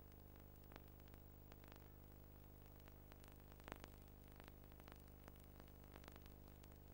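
Near silence: a faint, steady low hum with scattered faint clicks, one a little louder about halfway through.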